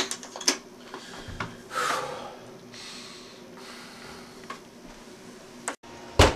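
Candlestick telephone receiver set down with a sharp click, a few small clicks and handling noises, then a loud knock on a wooden door just before the end.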